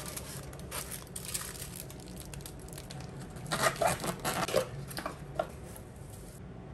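Handling noises from food packaging: crinkling of aluminium foil as a knife cuts through a foil-wrapped sandwich, then louder rustling and crinkling of a plastic delivery bag being lifted, about three and a half seconds in.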